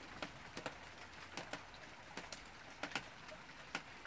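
Rainwater dripping: irregular sharp drops, two or three a second, over a faint steady hiss of rain.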